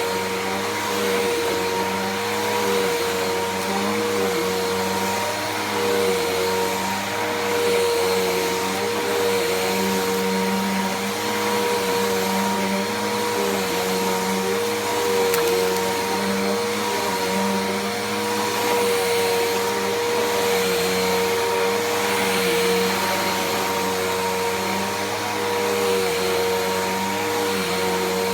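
Bissell PowerForce Helix Turbo 68C71 upright vacuum cleaner running while vacuuming: a steady motor tone over the rush of air.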